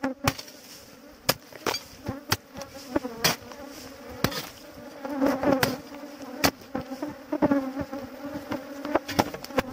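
A swarm of bees from an underground nest buzzing steadily with a wavering pitch, broken by irregular sharp knocks about once a second.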